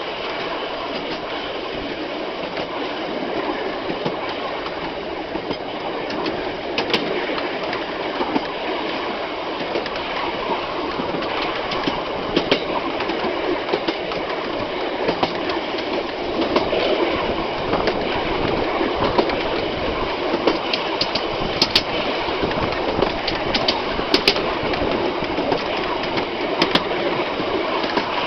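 Heritage train rolling along straight track: a steady rumble and rattle of wheels on rail. Sharp short clicks come now and then, several close together in the last third.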